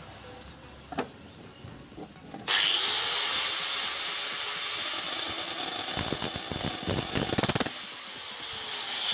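Small power cutting machine starting abruptly about two and a half seconds in and grinding against a steel rod with a wood-cutting blade: a loud, high grinding noise that rattles for a while near the end, then drops to a lower running whir. The wood blade barely marks the rod.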